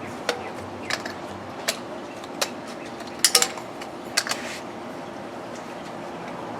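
Small plastic toy tool pieces and screws clicking and clattering as they are handled and set down: a run of sharp clicks, with a quick cluster about three seconds in, stopping after four and a half seconds.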